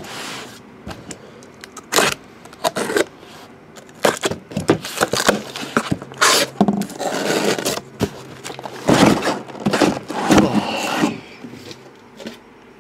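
Packing tape being peeled and a cardboard case of trading card boxes being opened and handled: a run of sharp snaps, scrapes and rustling bursts.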